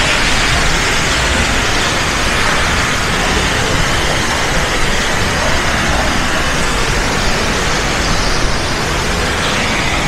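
Waterfall rushing in a steady, loud roar as it drops through a narrow rock chute.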